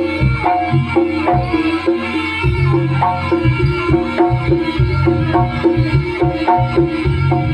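Jaranan music: a gamelan-style ensemble of hand drums and pitched metal percussion playing a quick, evenly repeating pattern over a heavy low drum beat.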